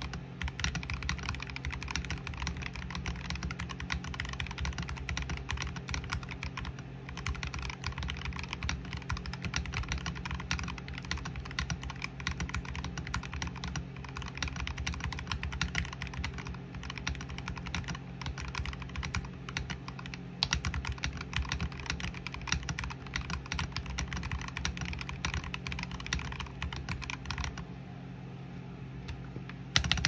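Fast, continuous typing on a NovelKeys NK65 Entry Edition mechanical keyboard fitted with lubed Akko Jelly Black linear switches, a dense run of key clacks that stops about two seconds before the end.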